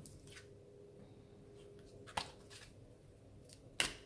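Oracle cards handled on a table: a few faint clicks and taps of card against card, the sharpest near the end.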